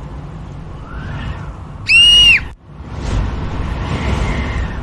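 Tornado wind sound effect: a low rumble of wind with gusts that rise and fall. About two seconds in, a brief, very loud high-pitched shriek cuts through and breaks off, and after a moment's drop the wind goes on.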